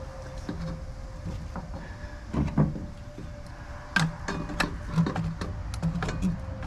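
Hand tools working at stripped screws on a metal scrap part: irregular metallic clicks and knocks, a few in the first half and more frequent from about the middle on.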